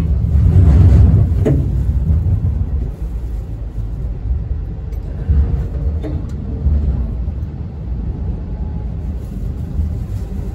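Hong Kong Light Rail car running along street track, heard from inside: a steady low rumble of wheels and motors, with a sharp click about a second and a half in.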